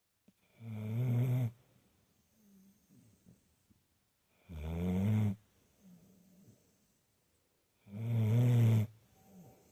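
Bullmastiff snoring in its sleep: three loud snores, each about a second long and about three and a half seconds apart, with soft breathing between.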